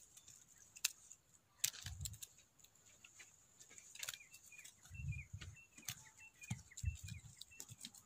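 Small hand hoe chopping into loose soil, giving dull thuds with a few sharp scrapes or clicks as the blade hits the earth. From about four seconds in, a bird chirps in a quick run of short falling notes.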